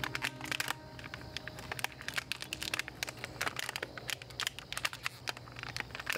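Plastic packaging crinkling and rustling in dense, irregular crackles as a new road bike is unwrapped.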